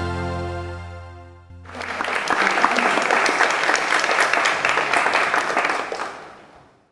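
A live band's song ends on a held chord that dies away over the first second and a half. The audience then applauds for about four seconds, fading out near the end.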